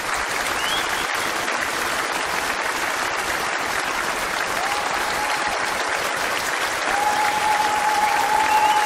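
A crowd applauding with steady, dense clapping that gets a little louder about seven seconds in. A couple of long, steady high tones sound over it in the second half.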